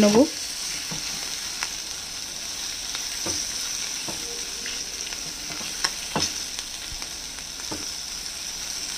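Onion and green capsicum sautéing in oil in a non-stick kadai: a steady sizzle, with a few light knocks and scrapes as a silicone spatula stirs them against the pan.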